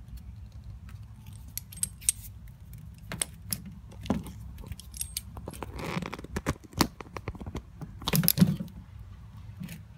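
Hands working a brass hose barb fitting and clear braided vinyl hose: scattered small metallic clicks and clinks, a rustle about six seconds in, and a louder clatter of handling noise a little after eight seconds, over a low steady hum.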